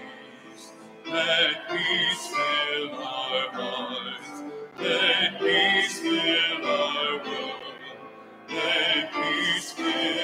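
A hymn being sung with instrumental accompaniment, in phrases of about four seconds with short breaks between them.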